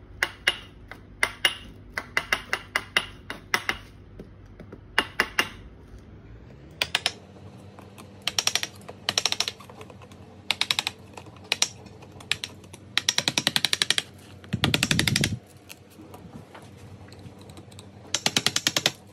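A metal meat-tenderizer mallet tapping the back of a knife to break a hard baked salt crust. Separate sharp taps come first; from about seven seconds in they come in quick runs of rapid taps, each run lasting up to a second.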